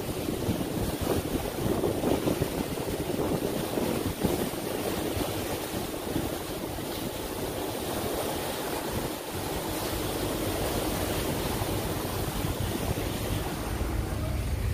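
Wind buffeting the microphone over the rush of water past a moving boat, a steady noisy sound with uneven low gusts. Near the end a steadier low hum comes in.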